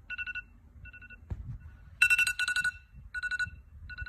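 iPhone alarm ringing: short groups of rapid high beeps repeating about once a second. There is a single knock about a second in.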